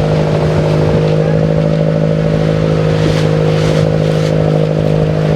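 The engine of a motorized outrigger canoe (bangka) running at a steady speed: a loud, even drone. Around the middle, a few short rushes of water splash against the hull in the choppy lake.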